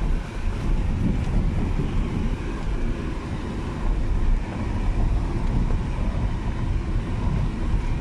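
Car driving slowly along a rough dirt track, heard from inside the cabin: a steady low rumble of tyres and engine, with some wind on the microphone.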